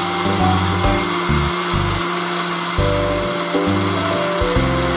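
Electric blender motor running steadily as it blends a mango milk shake, under background music with a moving bass line.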